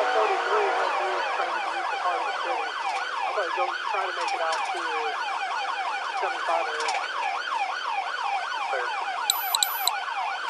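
Police cruiser siren on the rapid yelp setting, its pitch sweeping up and down about three times a second. Near the end come three short, high beeps.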